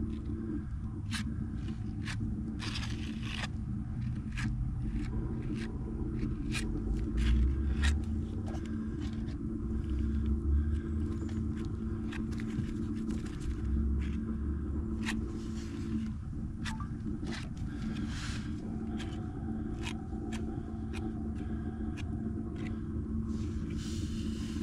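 Scattered sharp clicks and short scraping strokes from hand work on the fiberglass repair, over a steady low hum.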